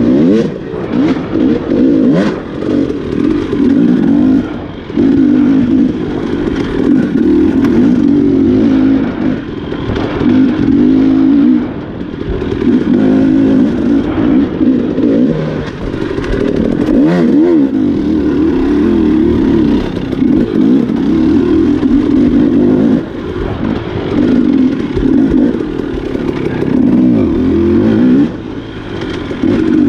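Off-road enduro dirt bike engine revving up and down over and over as the throttle is opened and closed, with scattered knocks and clatter.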